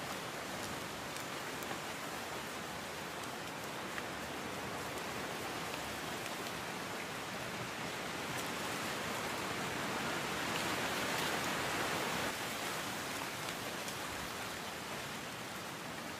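Steady hiss of a pot of coconut milk heating over a wood fire, swelling for a few seconds in the middle, with a few faint ticks.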